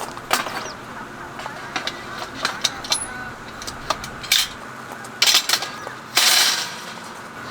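A series of light clicks and knocks at uneven intervals, with two short scraping or rustling noises about five and six seconds in: small objects being handled.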